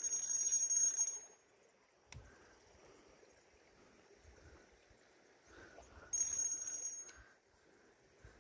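Spinning fishing reel giving two brief high metallic whirrs, each about a second long and the second about six seconds after the first, while a hooked traíra is worked in at the bank.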